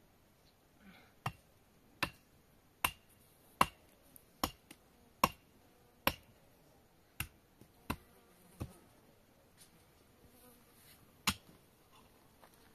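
Pickaxe striking stony earth as a dirt bank is dug out by hand: a run of sharp blows about one every 0.8 seconds, then a pause and one more strike near the end.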